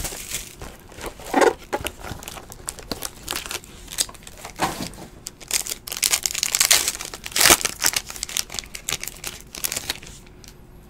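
A sports-card pack's shiny wrapper being torn open and crinkled by hand, a run of irregular crackles that dies down near the end.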